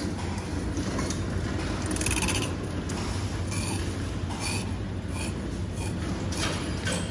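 Soft plastic dispenser bottle being squeezed as gear oil is fed into a motorcycle transmission's fill hole, giving several short crackles over a steady low hum.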